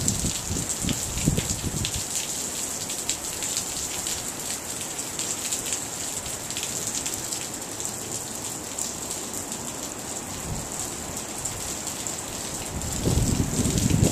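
Heavy rain falling with a steady hiss and a dense patter of drops. Brief low rumbles come in near the start and again near the end.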